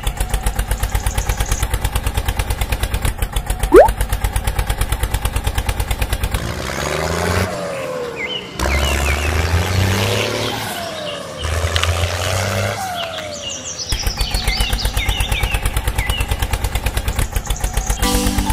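A diesel tractor engine chugging at a fast, even beat, with a short sharp rising whistle about four seconds in. Midway there is a stretch of different engine and clatter sounds with sliding pitches, before the steady chugging returns.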